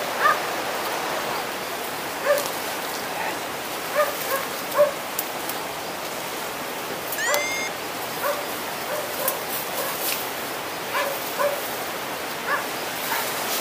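An animal barking in short, repeated yelps over a steady rush of water. Brush rustles and twigs snap close by.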